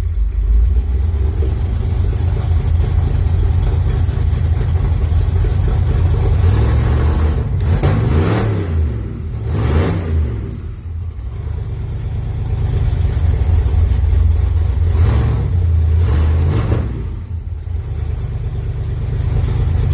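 Car engine idling loudly and being revved by blips of the throttle, two quick revs about eight seconds in and two more about fifteen seconds in, each rising and falling back to idle.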